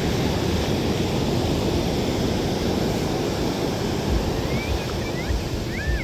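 Ocean surf washing onto the beach, a steady rush, with wind buffeting the microphone. A few short high chirps come near the end, and a steady low hum starts just before it ends.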